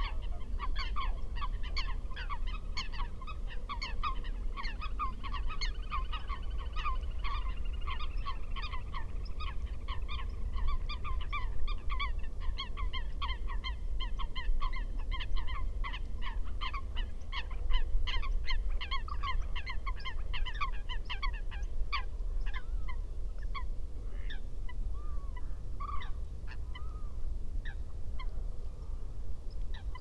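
Eurasian coots calling: a fast, even series of short calls, about four a second, which thins out after about twenty seconds into a few scattered calls.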